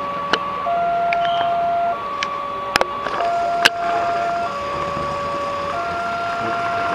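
Railway level-crossing warning alarm: an electronic two-tone signal that alternates steadily between a higher and a lower chime about every second and a quarter. Under it is road traffic, with a few sharp clicks.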